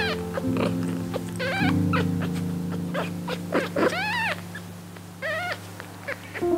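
Newborn kittens mewing: a series of short, high, arching cries, the loudest about four seconds in. The kittens are six days old.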